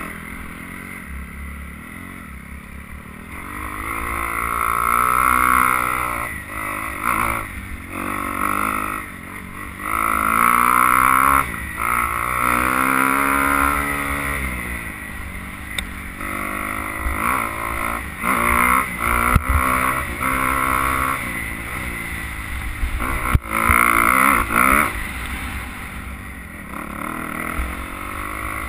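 Dirt bike engine under way on a trail, its pitch repeatedly rising and falling as the throttle opens and closes and the gears change. Two sharp knocks stand out in the second half.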